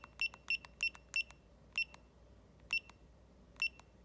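Key beeps from a Retekess T128 wristwatch pager receiver as its buttons are pressed to scroll through characters. There are short, high beeps, each with a click: four quick ones about three a second, then three more spaced about a second apart.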